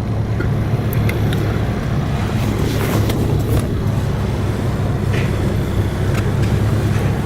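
A car's engine and road noise, a steady low hum with a few faint clicks.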